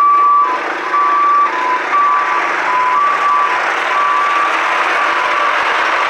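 Two-tone reversing alarm on heavy paving equipment, beeping high and low in turn about every half second. It runs over the noise of the working machinery, which grows louder while the beeps fade near the end.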